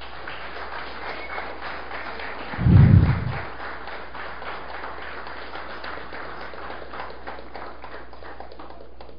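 Audience applauding, a dense steady patter of many hands clapping, with one loud low thump about three seconds in.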